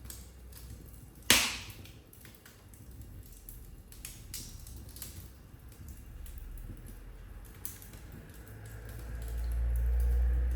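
Wood fire in a fireplace crackling, with many small snaps and one loud pop about a second in. A low rumble swells near the end.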